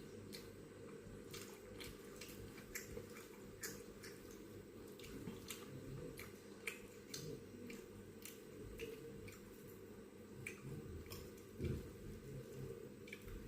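A person eating close to the microphone: soft chewing with irregular wet mouth clicks and smacks, and one louder knock about twelve seconds in.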